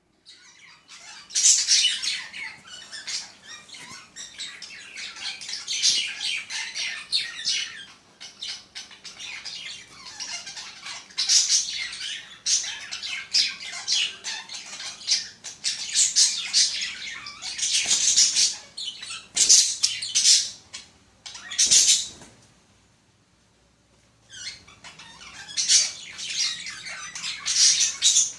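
Pet budgerigars chattering and squawking in dense, high-pitched bursts, with a pause of about two seconds roughly three-quarters of the way through.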